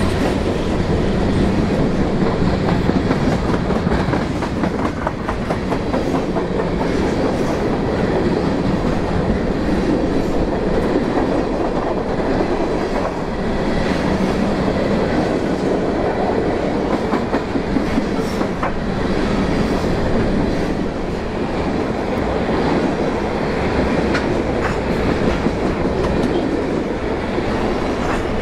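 Empty covered hopper cars of a grain train rolling past at close range: a steady rumble and rattle, with the clickety-clack of wheels clicking over rail joints.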